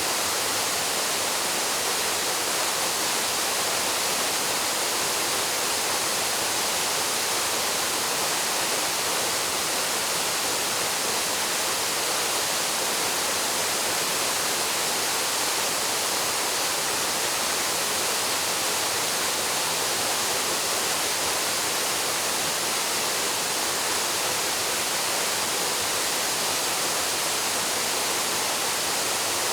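Paraso Falls, a waterfall, pouring into its pool: a steady, unbroken rush of falling water with no change in level.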